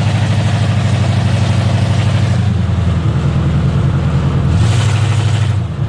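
Chevy pickup's engine running loud through open exhaust headers, a rough, deep exhaust note heard from inside the cab while driving. The engine note shifts about halfway through and swells briefly near the end before dropping for a moment.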